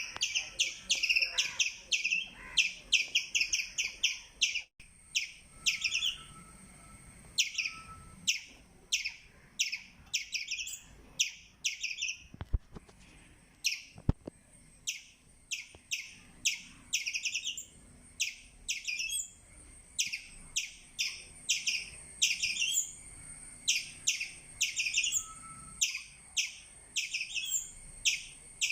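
Indian palm squirrel chirping: a long series of short, sharp, high-pitched chirps, each a quick downward sweep, coming several a second in runs broken by brief pauses.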